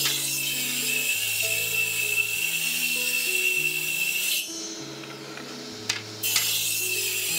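Table saw blade ripping a thick hardwood board lengthwise: a hissing cut with a steady high whine. The cut stops about four and a half seconds in and starts again about a second and a half later.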